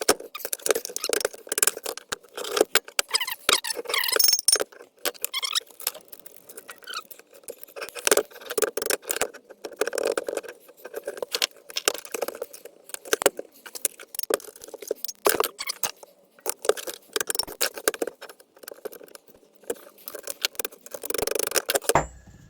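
Metal parts of a split differential being worked apart and handled: irregular clinks, knocks and scrapes of steel on steel, with a few short squeaks about four seconds in.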